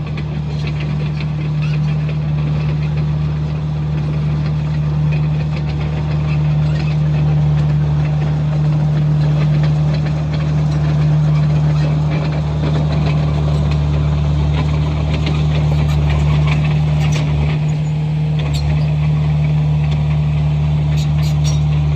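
Komatsu bulldozer's diesel engine running steadily with a deep, even hum. A few brief clicks or rattles come in over the last few seconds.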